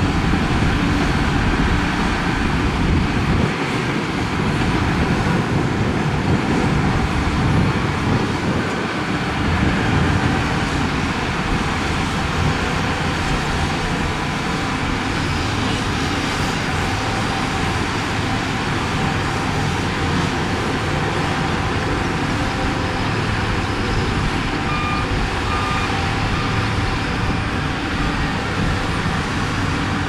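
Diesel engines of heavy earthmoving machines, bulldozer and dump trucks, running steadily under load. A backup alarm beeps three times near the end.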